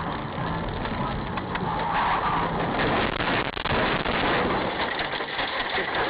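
Car engine and road noise, with many small clicks and rattles and a low engine hum over the first couple of seconds.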